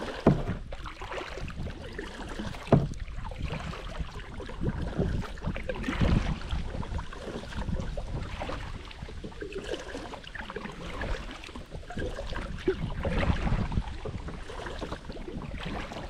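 Kayak being paddled: a double-bladed paddle dipping and splashing through the water stroke after stroke, with two sharp knocks near the start.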